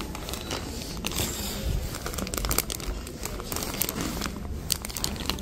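Clear plastic packaging of a memory foam pillow crinkling and crackling unevenly as a hand presses and handles it.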